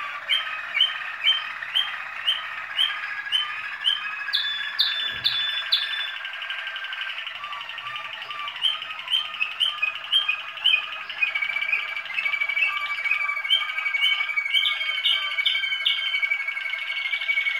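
Waterslager (Malinois) song canaries singing continuously. The song has strings of repeated notes at about two a second, a short run of higher notes about five seconds in, and a long steady whistle-like note through the second half.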